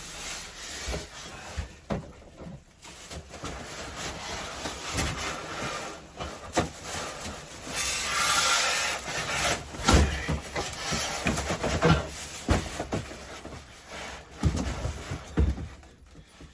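Packaging and parts being handled and pulled out of a box: irregular rubbing and scraping with scattered knocks and thumps. The loudest moments are a long scraping rush about eight seconds in and a sharp thump about ten seconds in.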